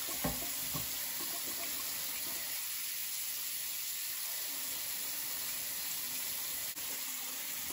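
Bathroom sink faucet running steadily into the basin, a continuous rush of water.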